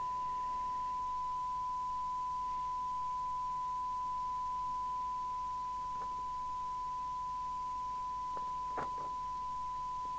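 Steady 1 kHz test tone from a Falcon FCB1281 FM CB receiver, played through a speaker while the set demodulates a signal generator's test signal during squelch and sensitivity testing. A few soft clicks and a brief rustle come about six seconds in and again near the end.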